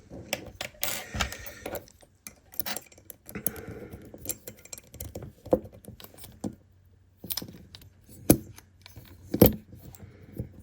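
Screws, a tool and small metal parts being handled during assembly: irregular clicks, jingles and knocks, with a few sharper knocks near the end.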